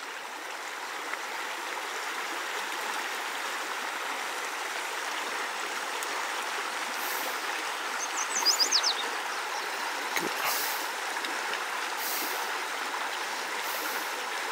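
Water of a small creek running steadily over a shallow riffle, an even rushing hiss. About eight seconds in, a brief run of quick high notes falls in pitch, and a single sharp click comes about two seconds later.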